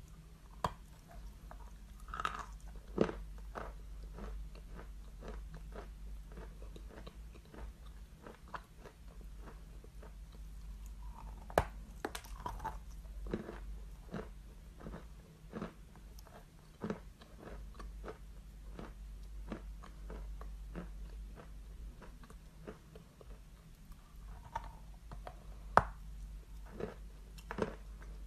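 A person biting and chewing white chalk right at the microphone. Dense small crunches run throughout as it is chewed, broken by a few loud, sharp bite-crunches, the loudest about twelve seconds in and near the end.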